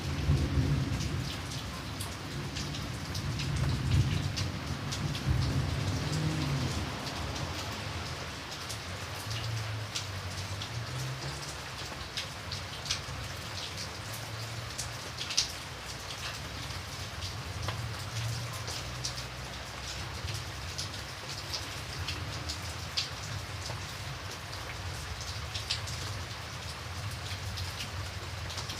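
Steady rain, with many separate drops ticking over an even hiss. A low rumble underneath is strongest for the first several seconds, then dies down.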